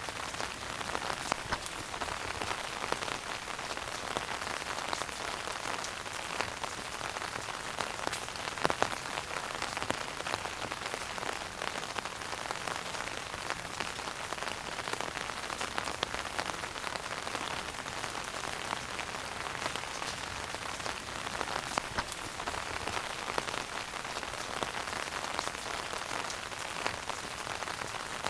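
Wood fire burning in a fireplace: a dense, steady crackle of small pops, with a few louder snaps.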